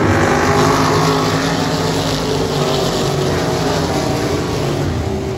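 A pack of open-wheel dirt-track race cars running at speed past the grandstand. Several engine notes overlap and shift up and down in pitch as the cars go by, easing a little near the end.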